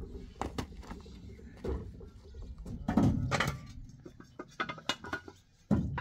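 Scattered knocks and clatter of objects being handled, with louder bumps about three seconds in and again near the end.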